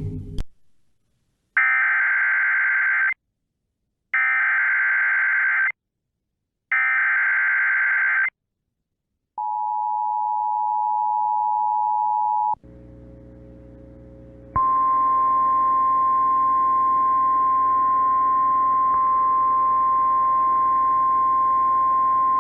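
Emergency Alert System SAME header: three identical warbling data bursts about a second and a half long with short gaps, then the two-pitch EAS attention tone for about three seconds. After a moment of faint radio hiss, the NOAA Weather Radio 1050 Hz warning alarm sounds as one steady tone for about nine seconds over radio static, signalling a new weather warning.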